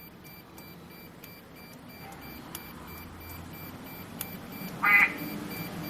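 One short, loud pitched sound about five seconds in, from an aftermarket custom car-horn sound unit, over a faint low hum.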